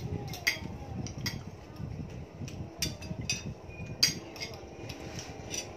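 Cutlery clinking and scraping against plates while eating: a string of scattered sharp clicks, the loudest about four seconds in.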